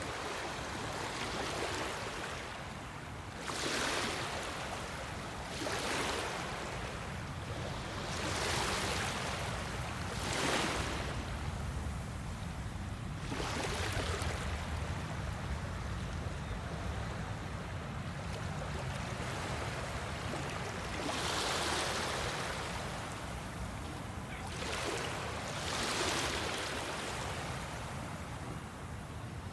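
Small waves washing in, a swell of water noise rising and falling every two to three seconds over a steady low rumble.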